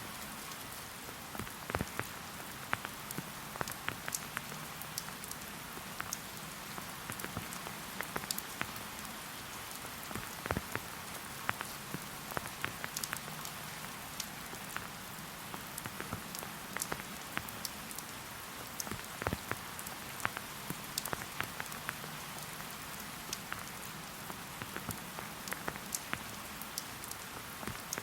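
Steady rain falling in a forest, an even hiss with many separate drops pattering and ticking close by at irregular moments.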